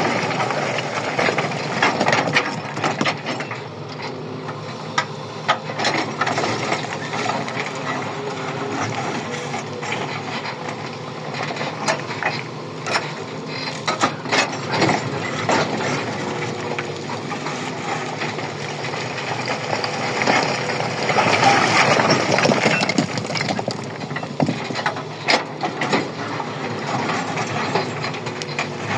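Heavy machinery running steadily, with frequent clanks and knocks over the engine hum and a louder stretch about two-thirds of the way through.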